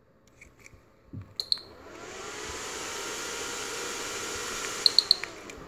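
A cooling fan, switched on by the wireless remote's relay, spins up to a steady rush of air after a click. Three short high beeps with clicks come near the end, and the fan is switched off and starts to wind down.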